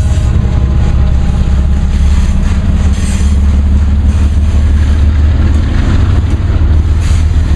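Intermodal freight train passing close by, a loud, steady, heavy low rumble.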